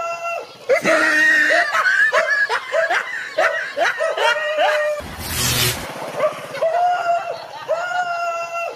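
Several people laughing and snickering for about four seconds over a short looping background tune. About five seconds in comes a brief hissing burst with a low thump, and then the tune returns.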